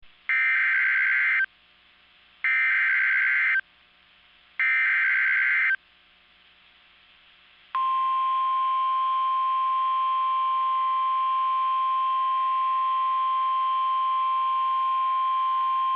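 NOAA Weather Radio alert signal: three one-second bursts of SAME digital header data, each a buzzy two-pitch chirp, coding a severe thunderstorm warning. About two seconds after the last burst comes the steady single-pitch 1050 Hz warning alarm tone, starting about eight seconds in, which signals that a warning message follows.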